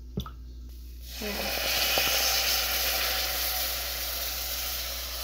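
Milk poured into a hot butter-and-flour roux in a pot, sizzling: a sharp hiss breaks out about a second in, swells over the next second, then eases into a steady sizzle.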